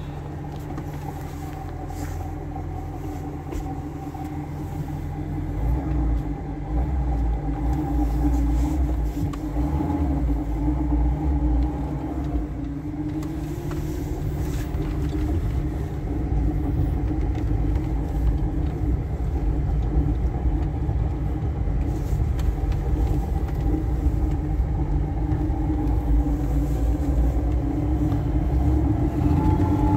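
A 1985 VAZ-2107 Lada's 1.5-litre four-cylinder engine running, heard from inside the cabin as the car sets off and drives slowly. A deeper rumble comes in about six seconds in, and the engine note rises a little before halfway as the car picks up speed.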